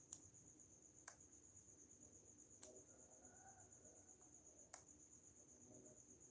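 Faint, steady high-pitched trill of a cricket, with four sharp clicks scattered through it.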